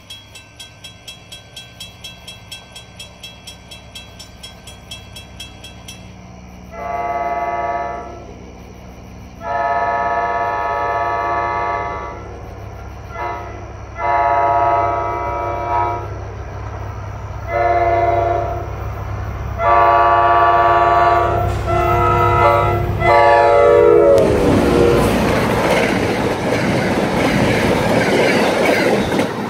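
A bell rings about two to three times a second. Then a diesel passenger train approaches, sounding its air horn in a series of long blasts with brief ones between, the grade-crossing signal, over a growing engine rumble. The last blast is held until the locomotive passes and its pitch drops, and then the cars rush by with a loud rumble of wheels on rail.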